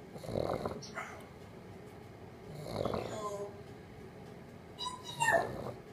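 A dog snoring in slow rhythmic breaths, about one snore every two and a half seconds. Short pitched calls from another pet break in twice, the first falling in pitch.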